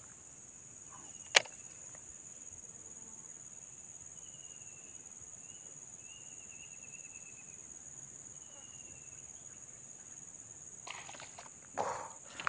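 Steady high-pitched drone of insects such as crickets, with one sharp click about a second and a half in and short bursts of noise near the end.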